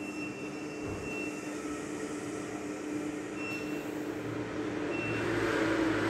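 Steady low mechanical hum with a constant droning tone, and a faint high tone that sounds briefly several times.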